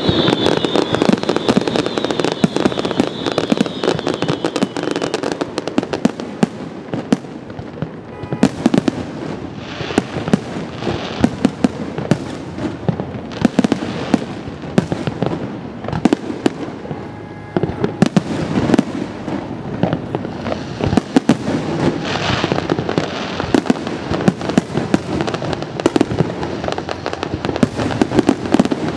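Fireworks display: a dense, continuous barrage of shell bursts and crackling reports.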